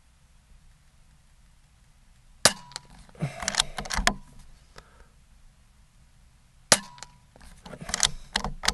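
Two shots from an Air Venturi Avenger .22 regulated PCP air rifle, each a single sharp crack with a short ring, about four seconds apart. After each shot comes a quick run of mechanical clicks as the side-lever action is cycled to chamber the next pellet.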